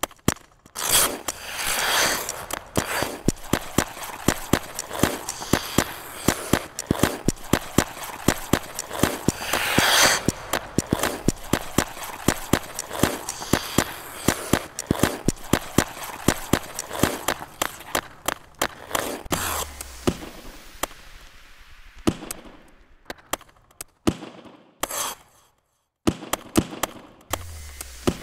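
Figure skate blades on ice: rapid sharp clicks and taps, with a few longer scraping swishes. After about twenty seconds the taps thin out to a few single hits, with a brief silence near the end.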